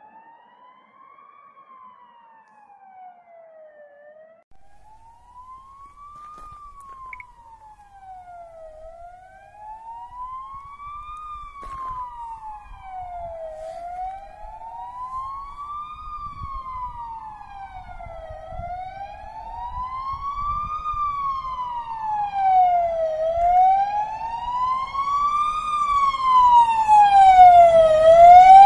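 Fire engine siren wailing, sliding slowly up and down about every five seconds and growing steadily louder as it approaches. Engine and road rumble rise beneath it in the second half.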